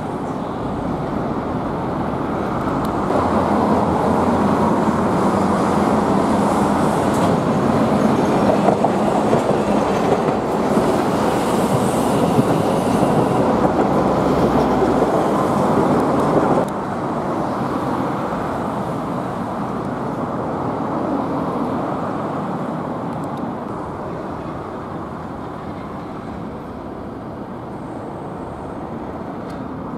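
Street traffic noise that swells about three seconds in as a large vehicle passes close by, drops suddenly a little past halfway, then fades to a lower steady hum.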